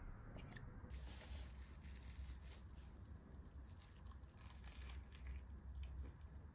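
Plastic cling wrap crinkling and tearing as it is peeled off a folded rice ball (onigiri): soft rustles and small crackles, starting about a second in over a low hum.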